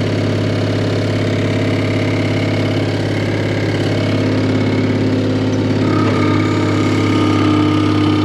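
Skid steer engine idling steadily; about six seconds in, a higher steady whine joins the engine sound.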